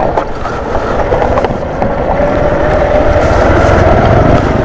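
Small motorcycle engine running while riding, a rapid low rumble whose note climbs slowly in the second half as it speeds up.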